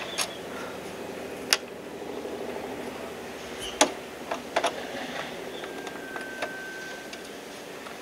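Scattered sharp clicks and taps of a screwdriver working the hood screws of a plastic MaxxFan roof vent, with two louder clicks early and midway. A steady hum runs underneath, and a faint steady tone sounds for a second or two after the middle.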